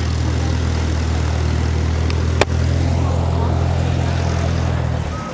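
A steady low engine hum that stops abruptly near the end, with a single sharp click about halfway through.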